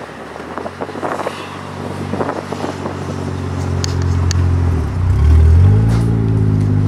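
Swapped Toyota 1JZ-GTE twin-turbo inline-six in a BMW E46, heard from inside the cabin, its engine note climbing steadily as the car accelerates and growing louder. About five seconds in the pitch dips briefly, then climbs again.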